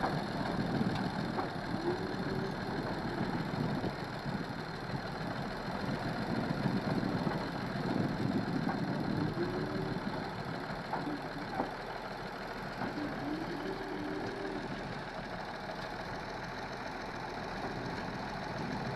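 Komatsu D85A-18 bulldozer's diesel engine running, its note rising and falling briefly a few times.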